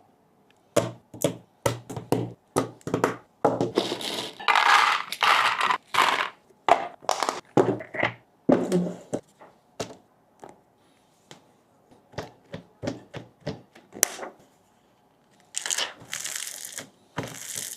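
Hands assembling a mechanical keyboard: a run of sharp clicks and knocks of hard keyboard parts, with two longer stretches of rubbing noise, about four seconds in and again near the end.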